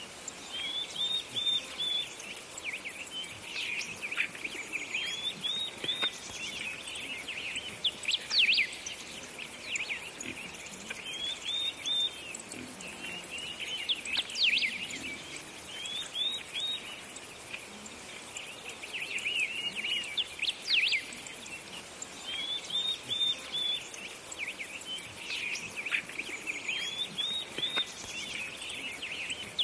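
Several birds singing, one of them repeating a short high phrase every three to four seconds among other chirps and calls.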